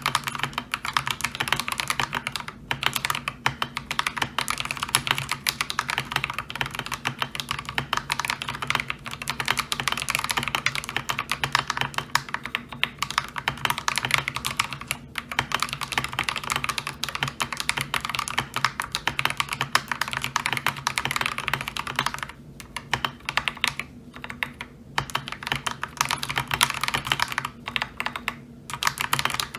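Fast, continuous typing on an Akko 3098B mechanical keyboard with lubed Akko Lavender Purple tactile switches and ASA-profile keycaps, a dense stream of keystroke clacks with a few short pauses in the last third.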